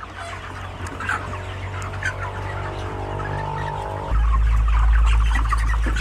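A large flock of broiler chickens, many overlapping short chirps and clucks. About four seconds in, a steady low rumble comes in and becomes the loudest sound.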